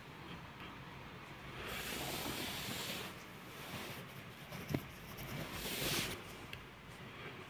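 Duvet fabric rustling as a chihuahua puppy wrestles with it: two longer rustles, about two seconds in and again near six seconds, with a single soft tap in between.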